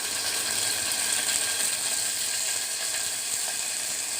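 Mustard seeds, dried red chillies and curry leaves spluttering and crackling in hot oil as a tempering (tadka): a dense, steady sizzle of rapid pops.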